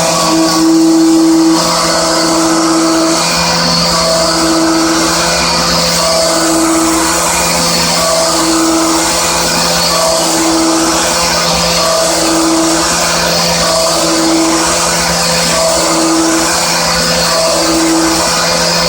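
Hermle C20U machining center trochoidal-milling with a 16 mm solid end mill at 4800 rpm. A steady machine hum runs throughout, and a pitched cutting tone sounds for just under a second about every two seconds as the cutter engages the material on each trochoidal loop.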